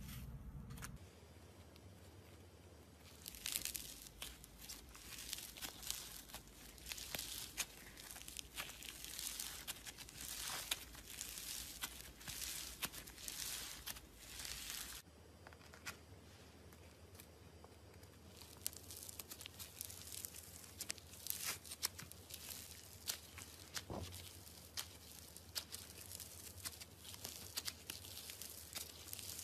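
Foam-bead slime (floam) squeezed and pulled apart by hand, giving dense runs of small crackling, crunching pops as the beads rub and burst apart. The crackling comes in two spells, with a quieter pause in the middle.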